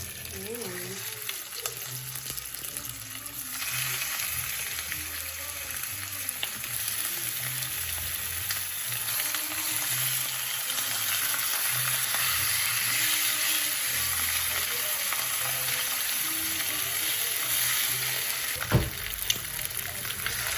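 Meat sizzling as it fries in a pan, the sizzle growing louder a few seconds in, with a single knock near the end.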